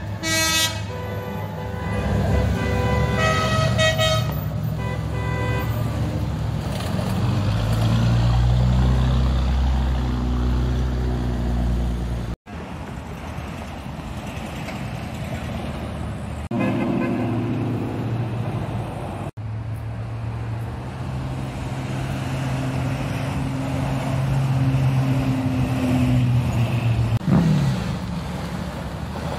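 Cars driving past one after another, their engines running, with car horns honking a few times in the first few seconds.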